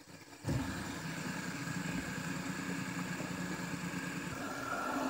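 Fidget spinner whirring after being flicked into a spin, a steady buzzing hum that starts suddenly about half a second in.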